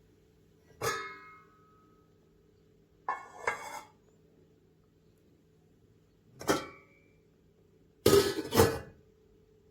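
Stainless steel pan being handled: a clang with a short metallic ring about a second in, a scraping clatter, then a few knocks, the loudest two close together near the end.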